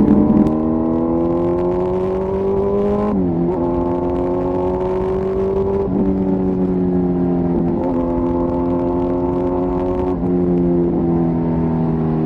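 Kawasaki ZX-10R inline-four engine and exhaust pulling under acceleration. The engine note climbs steadily, then drops sharply at each upshift, about three seconds apart.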